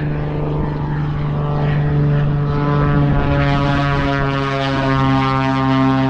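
Propeller aircraft engine running with a loud, steady drone, holding one pitch throughout, with more hiss on top from about halfway in.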